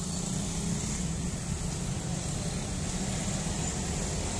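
Road traffic of many motor scooters and motorcycles running at low speed as they stream over a railway level crossing, a steady low engine drone with a faint steady high hiss above it.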